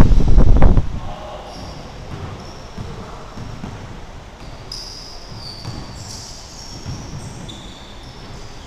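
Pickup basketball game in a large gymnasium: sneakers squeaking on the hardwood floor and a ball bouncing, with the room's echo. A loud low rumble in the first second covers everything else, then the squeaks and bounces go on more quietly.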